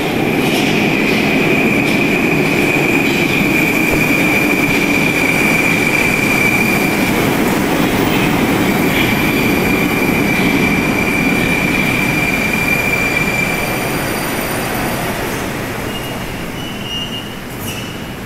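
A Moscow metro 81-765 train pulls into the station and brakes. Its wheels rumble under a steady high squeal, and both ease off about fourteen seconds in as the train comes to a stop.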